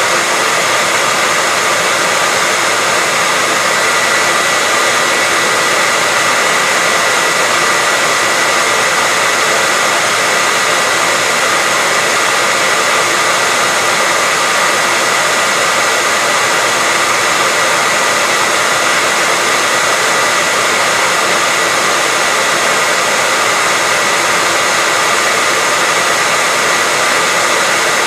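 Hair dryer running steadily as white noise: an even rushing hiss of blown air with a constant high whine from the motor, unchanging throughout.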